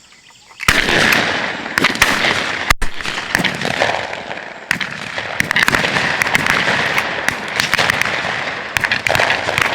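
Heavy, rapid shotgun fire from several hunters shooting at once at a passing flock of doves. It starts about half a second in, with shots overlapping many times a second.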